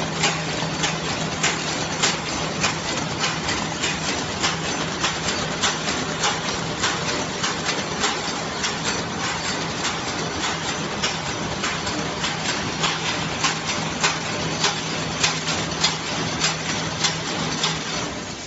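Automatic cutlery-set wrapping machine running: a steady hum under regular mechanical clacking, a little under two clacks a second.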